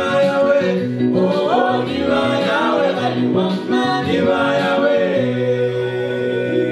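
Small gospel vocal group singing in harmony, over sustained low notes from an electronic keyboard.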